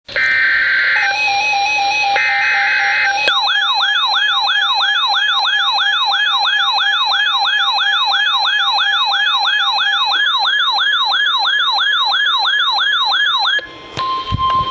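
Weather alert radios sounding an Emergency Alert System warning. It opens with two buzzing bursts of SAME digital header data. Then a radio's siren alarm whoops about three times a second for some ten seconds while another radio beeps rapidly, and after a brief gap the steady weather-radio warning tone begins near the end.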